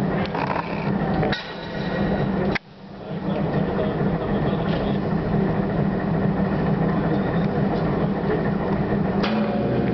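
Steady low machinery drone with occasional metallic clinks and knocks. The level drops sharply about two and a half seconds in and builds back up over the next second.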